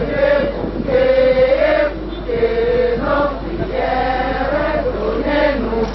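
A crowd of mourners singing together, men's and women's voices, in long held phrases that rise and fall.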